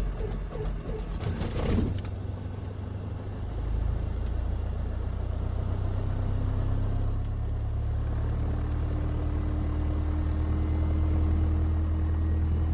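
Steady low aircraft engine drone heard from inside the cockpit. It comes in with a short garbled radio transmission that ends in a click about two seconds in, and the drone grows louder a little after that.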